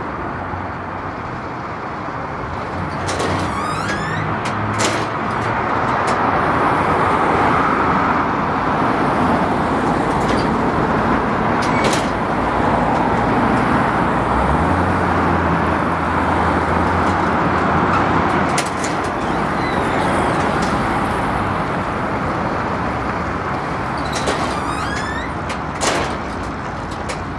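Rotating-prism billboard (prismatron) creaking badly as its prisms turn: short runs of rising squeaks near the start, a few seconds in and again near the end, over steady road traffic, with a vehicle engine humming low through the middle.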